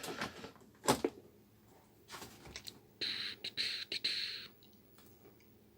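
Handling noises as a pine TV alarm clock radio is plugged in and switched on: a few sharp clicks and knocks, the loudest about a second in, then a scratchy, broken hiss for about a second and a half.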